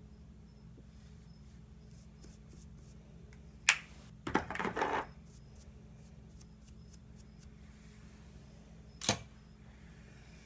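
Makeup packaging being handled: a sharp plastic click, a short scraping rustle just after it, and a second click about five seconds later, over a low steady hum.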